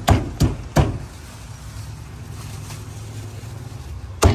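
Meat cleaver chopping roast duck on a thick wooden chopping block: three quick chops in the first second, then a pause with a low steady rumble, then another chop near the end.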